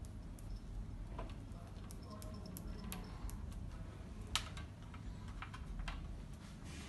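Scattered small clicks and taps of hands handling an aluminium LED grow-light bar and screwing in its threaded cable connector, with one sharper click a little over four seconds in.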